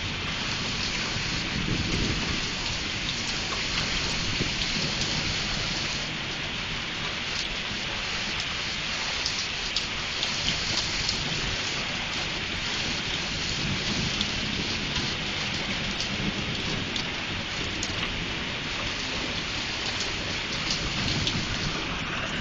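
Hail and heavy rain pelting down: a dense steady hiss of rain with many sharp clattering hailstone impacts.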